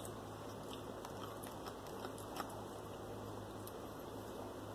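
Quiet eating sounds: chewing and scattered light clicks of a plastic fork in a takeout food container, over a steady low hum.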